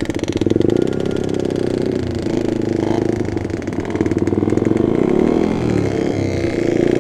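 Two-stroke motorcycle engines, Yamaha RX King single-cylinders, running under way as the bikes ride in a group, the engine note rising and falling with the throttle.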